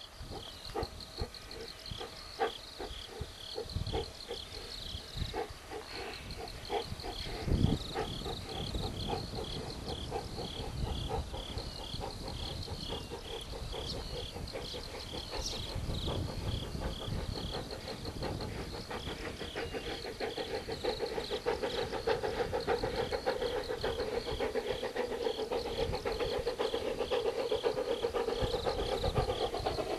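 Yinghao Railway C2 narrow-gauge 0-8-0 steam locomotive working hard up a steep gradient with a train of empty wagons: slow, evenly spaced exhaust beats growing steadily louder as it approaches, with a rising hiss of steam in the second half.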